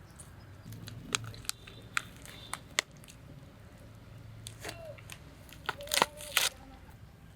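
Skin being pulled and torn off a raw rooster carcass. Scattered sharp cracks and tearing, busiest and loudest about six seconds in.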